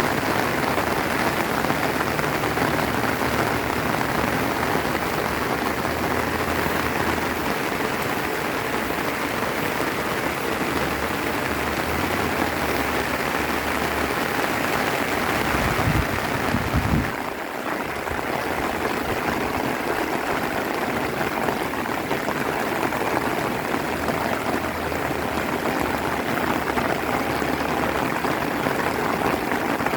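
Steady rain falling, a dense even hiss, with a brief low rumble about halfway through.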